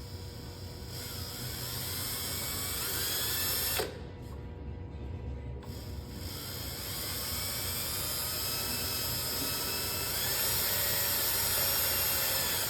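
Power drill driving a small Robertson-head screw into a hollow aluminum post, its motor whining in two runs: a short one, then after a brief stop a longer one, the pitch rising and falling as the trigger is feathered while the screw catches.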